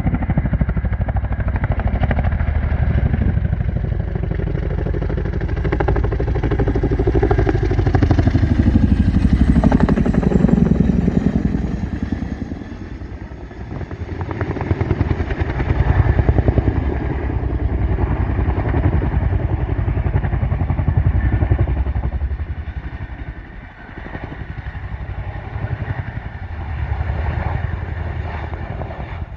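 Boeing CH-47 Chinook tandem-rotor helicopter flying low and banking close by, its rotors beating with a deep rapid thudding. The sound swells louder as it comes near, about a third of the way in and again around the middle, then fades and rises again as it moves off.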